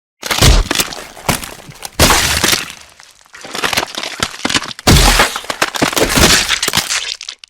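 Cartoon gore sound effect: a loud string of smashing impacts with cracking and breaking glass between them. Four heavy crashes come roughly every one and a half seconds, then the sound stops abruptly.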